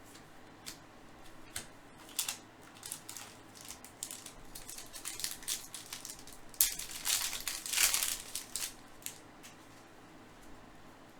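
Baseball card packs and cards being handled: scattered crinkles and clicks, building into a dense stretch of crinkling and rustling from about six and a half to nine seconds in.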